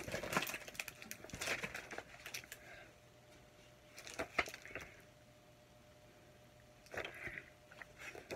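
Paper and a cardboard candy box being handled, rustling and crinkling in short spells with quiet pauses between them.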